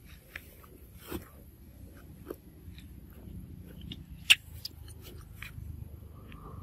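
Macaques biting into and chewing ripe mango, heard as a scattering of short sharp clicks. One sharp click about four seconds in is the loudest.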